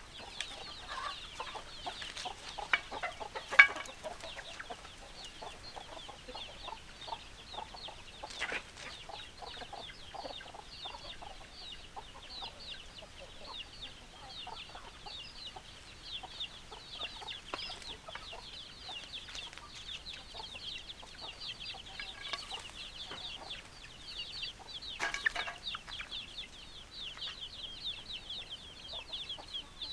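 Chickens clucking on and off over a constant dense high chirping. A sharp click sounds about three and a half seconds in, and a louder call about 25 seconds in.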